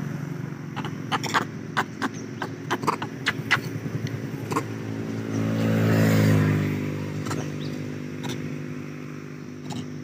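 An engine running steadily, swelling louder about six seconds in and then easing off. A run of sharp clicks comes over it in the first half.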